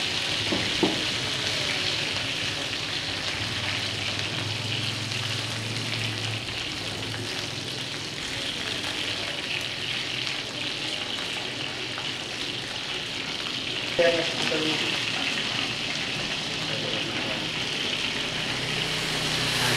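Chicken wings and minced garlic sizzling steadily in hot oil in a frying pan. A utensil knocks against the pan twice, just under a second in and about two-thirds through, the second louder.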